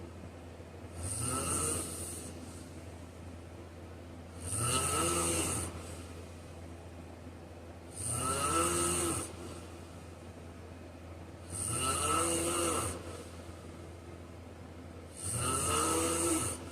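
A man snoring in his sleep: five snores, each about a second long, coming evenly about every three and a half seconds, with a steady low hum underneath.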